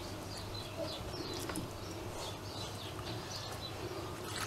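Small birds chirping and twittering again and again in the background, over a low steady hum.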